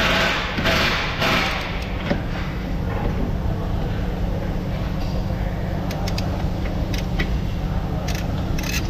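A ratchet wrench working a bolt on a car's rear suspension knuckle, with a few short metal clicks in the second half, over a steady low workshop hum.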